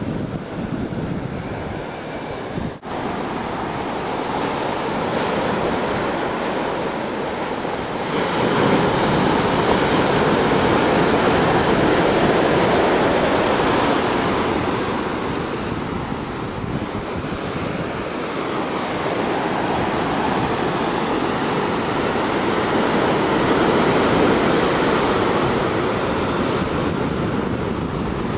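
Heavy ocean surf breaking and washing over rocks, a continuous roar that rises and falls in swells, growing louder about eight seconds in after a brief dropout near the start.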